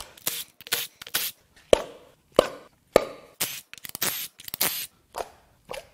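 Irregular clicks, clacks and sharp knocks of ignition coils and spark plugs being removed from a V6 engine with a cordless Milwaukee tool: metal tools and parts handled and set down, several sharp knocks among short scraping bursts.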